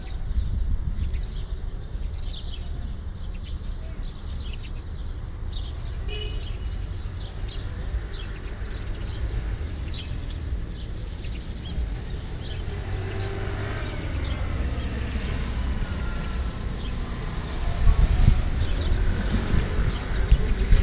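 Wind buffeting the microphone with a heavy, unsteady low rumble. From about halfway, a passing engine grows louder toward the end.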